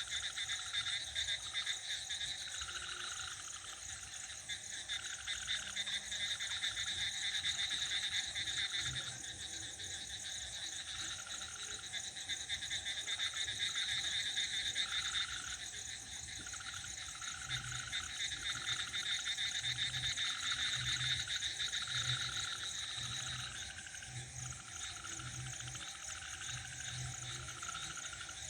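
Night chorus of frogs and crickets: a steady, high cricket trill with frogs calling over and over about a second apart. Deep, evenly spaced croaks join in during the second half.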